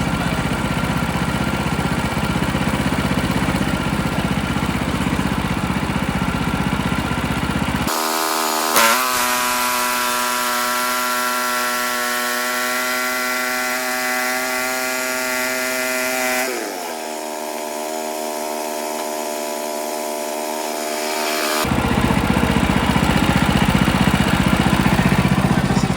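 Woodland Mills HM126 portable band sawmill running, its gas engine driving the blade through a white pine log. About eight seconds in the sound switches suddenly to a steadier, higher engine tone, which slides down in pitch around sixteen seconds in. The heavier running noise comes back abruptly a few seconds before the end.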